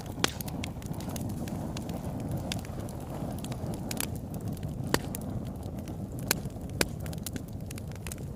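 Wood fire burning in a fireplace: a steady low rush of flame with irregular crackles and about four sharp, louder pops.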